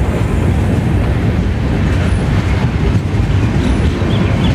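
Passenger train (the Tapaswini Express) running along the track, heard from aboard the moving coach: a steady, loud running noise of wheels on rails.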